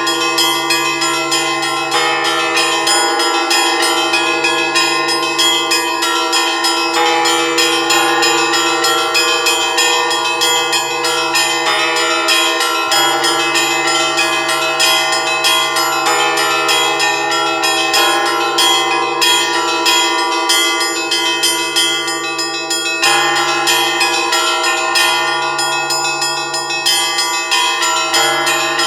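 Several church bells of an Orthodox monastery bell tower rung together in a continuous, dense peal. Smaller bells are struck in quick succession over the steady ringing of the larger bells, whose lowest tone drops out briefly a few times.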